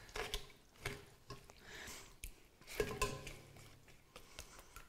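A spoon pressing and scraping cooked vegetables in a metal sieve over a steel pot: scattered soft scrapes and clicks of the utensil against the sieve.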